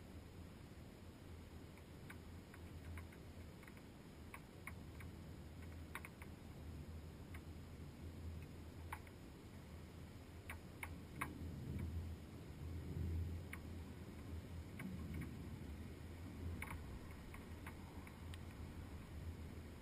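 Faint, muffled sound through a GoPro's sealed waterproof housing: a low steady rumble with scattered light ticks, a few every second or two, that swells a little about halfway through.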